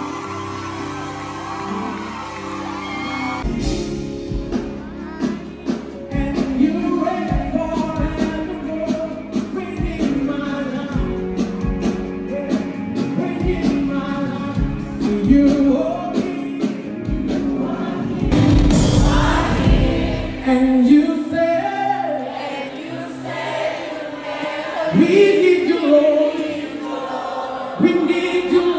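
Gospel music: singing over a band, with held chords at first and a steady beat coming in about three seconds in.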